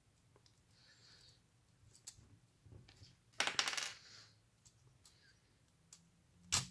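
Small plastic Mini 4WD model parts clicking and clattering on a tabletop as they are picked up and handled. A quick rattle of clicks comes about halfway through, and one sharp click near the end.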